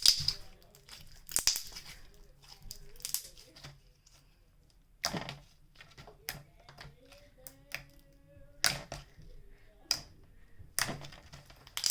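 Clear slime being squished and stretched by hand, giving off irregular sharp clicks and little pops.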